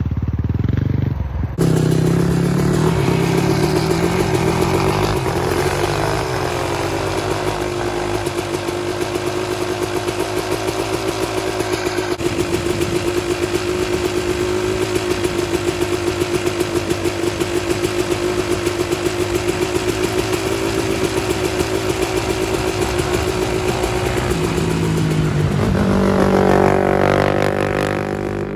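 Sport quad's engine at steady high revs for a long stretch, then growing louder, its pitch shifting as the quad comes close near the end. It opens with a dirt bike revving briefly.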